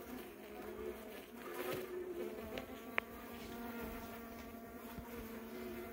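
Honeybees buzzing inside the hive, a steady hum, with one sharp click about halfway through.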